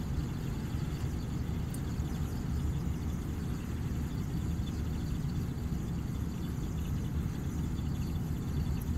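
Steady low hum with no distinct knocks or clicks.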